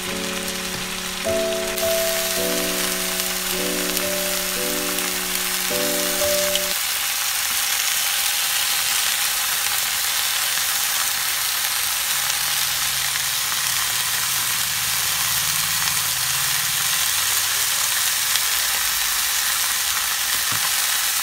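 Chicken breasts sizzling steadily as they fry in oil in a nonstick frying pan. A tune of changing notes plays over the first seven seconds or so, then stops, leaving only the sizzle.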